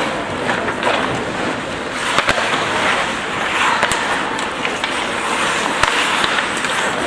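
Ice hockey play: skates scraping on the ice with a few sharp stick-and-puck clacks, over the arena's steady background noise.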